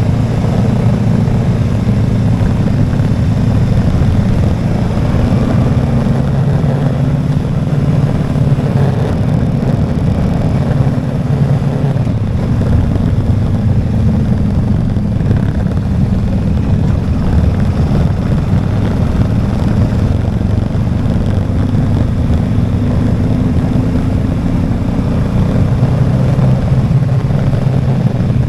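Motorcycle running steadily on the road: an even engine hum under a constant rushing noise.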